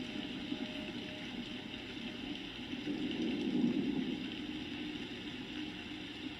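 Steady rain falling: an even wash of water noise from a rainstorm recording.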